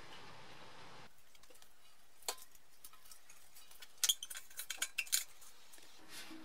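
Light metallic clinks and knocks from a rusty steel motorcycle fuel tank being handled on a wooden workbench: one click a couple of seconds in, then a quick cluster of clinks about a second later.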